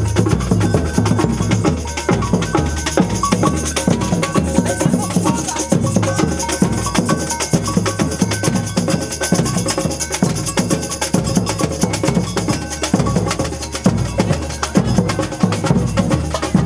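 Music with a fast, steady percussion beat over a stepping bass line.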